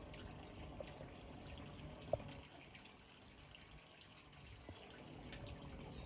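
Faint, steady trickle of water from a small solar garden fountain, with one brief sharp sound about two seconds in.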